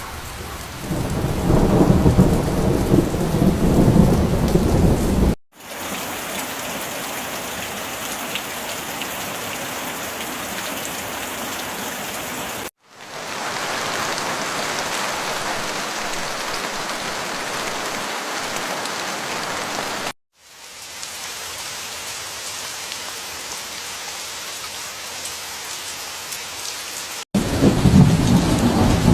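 Heavy rain falling steadily, heard in four separate stretches joined by abrupt cuts. A low rumble of thunder runs through the first and last stretches, which are the loudest.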